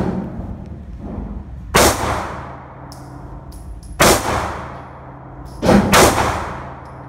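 Four shots from a Glock 43X 9 mm subcompact pistol, each ringing on in the echo of an indoor range. Two shots are spaced a couple of seconds apart, then two come in quick succession near the end.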